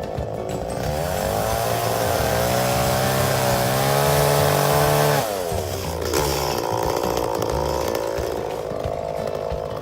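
Two-stroke chainsaw engine revving up about a second in and holding at high speed for about four seconds, then dropping back to a lower, uneven speed.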